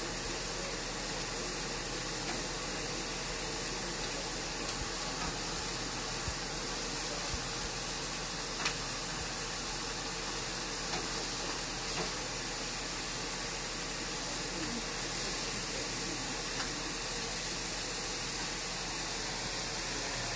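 Scallops searing in hot frying pans, a steady sizzle, with a few light clicks of metal tongs against the pan as the scallops are turned.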